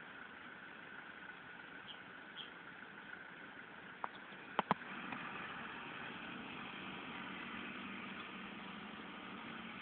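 Motor grader's diesel engine running steadily, with a few sharp clicks near the middle; the engine grows a little louder after about five seconds.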